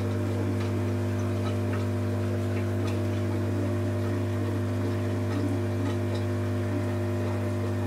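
Steady low electric hum of an aquarium air pump running sponge filters, with faint scattered ticks.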